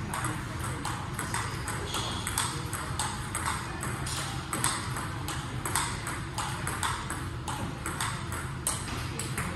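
Table tennis balls struck back and forth in a practice drill: sharp clicks of the ball on the paddles and the table, about two or three a second, over a low steady hum.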